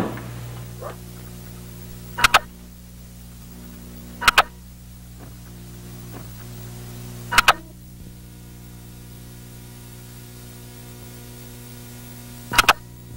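Steady electrical hum, with four sharp double clicks at uneven intervals.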